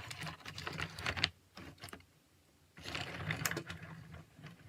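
Plastic toys clicking and rattling in two spells of about a second each, with a quiet gap between.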